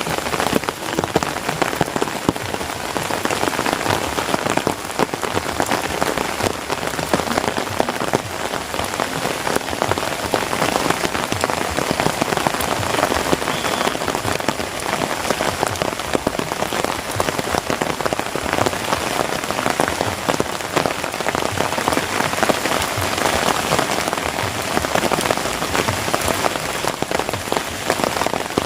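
Heavy rain falling steadily, a dense, even hiss of countless drops with fine pattering.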